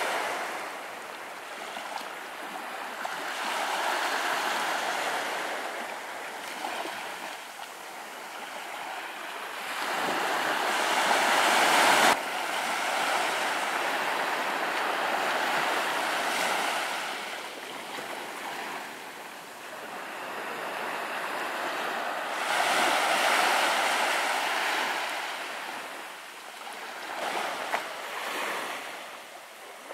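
Small waves washing up on a sandy beach, the surf swelling and fading every few seconds. The sound drops abruptly about twelve seconds in.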